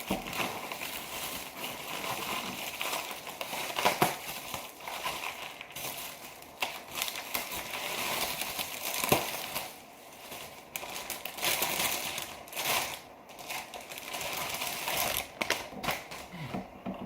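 Plastic packaging crinkling and rustling as it is handled and pulled away from a motherboard, with scattered sharp clicks and two louder knocks, about 4 s and 9 s in.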